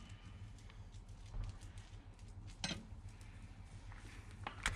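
A few faint, sharp metallic clicks over a low steady hum, one about two and a half seconds in and a few close together near the end: wheel nuts being run onto the wheel studs with a hand wrench.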